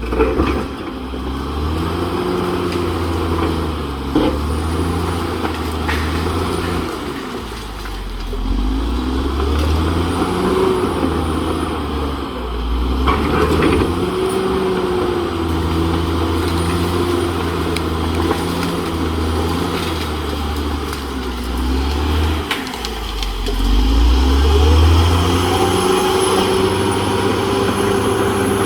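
CAT D6R XL crawler bulldozer's diesel engine working under changing load, its pitch rising and falling again and again, with a few sharp clanks along the way and a high whine rising near the end.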